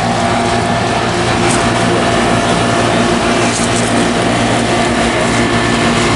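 1989 Carrier Tech2000 2.5-ton central air-conditioner outdoor unit running steadily, working normally: a steady low hum from the compressor under the rush of the condenser fan.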